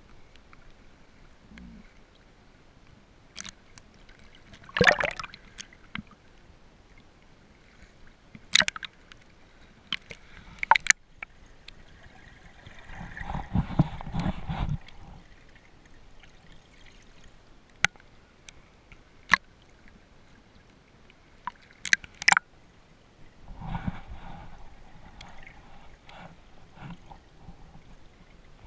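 Water sloshing and gurgling around a camera moving at and just below the surface, muffled, with scattered sharp clicks and knocks and two louder stretches of churning water.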